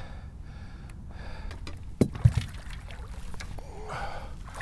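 Two sharp knocks on the bass boat about two seconds in, as the long-handled landing net is grabbed to land a hooked fish. Under them runs a low, steady rumble of wind and water.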